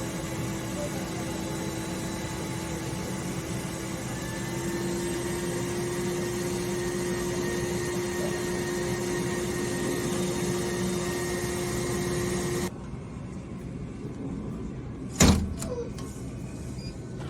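Ammunition vending machine's dispensing mechanism running with a steady whir and hum, like a vacuum cleaner, that rises slightly in pitch about four seconds in and cuts off suddenly about thirteen seconds in. A single sharp knock follows a couple of seconds later.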